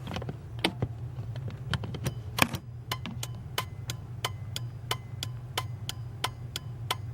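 A Simons-brand replacement turn signal flasher in a Chevy/GMC pickup clicking steadily on and off, about three sharp clicks a second, each with a faint ring. It is a quiet flasher that is hard to hear, over a steady low hum.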